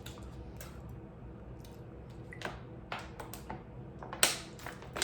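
Close-up messy chewing of a pizza puff cheeseburger: a scatter of short wet smacks and mouth clicks, the loudest about four seconds in.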